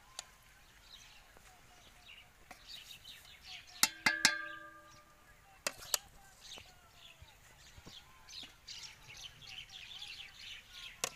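A metal ladle clanks against a metal cooking pot about four seconds in, the pot ringing briefly, with two lighter taps a couple of seconds later. Small birds chirp throughout.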